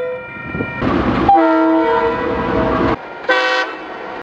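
KiwiRail DL-class diesel locomotive's multi-note horn sounding: a chord fades out, a rush of locomotive noise comes about a second in, and then another chord is held for about a second and a half. A moment after it cuts off, a Matangi electric multiple unit's horn gives one short blast.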